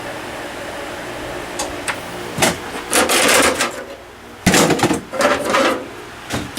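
Desktop PC running with a steady fan whir that winds down about two to four seconds in, as the machine is shut off. Clicks and several bursts of clunking and rattling, like the metal case and parts being handled, come over it.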